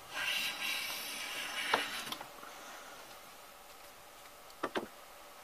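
Defiance No. 4 hand plane with a freshly sharpened iron taking a long shaving off a maple board: a hiss of the blade cutting for about two seconds, ending in a sharp click. Near the end come two quick knocks as the plane is set down on the bench.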